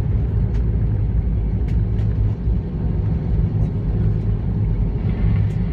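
Steady low rumble inside the cabin of an Airbus A320-214 rolling on the ground after landing, from the engines at low power and the aircraft's movement.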